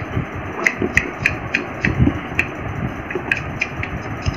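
Handling noise as a boxed jigsaw puzzle gift is handled: irregular sharp clicks and knocks, several a second, over a rustling haze.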